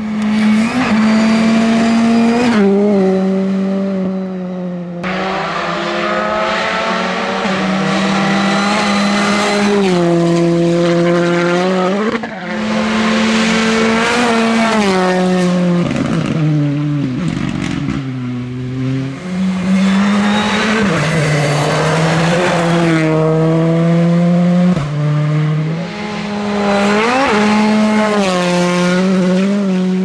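Rally cars being driven hard past the roadside, engines revving up and dropping back again and again in steps through gear changes.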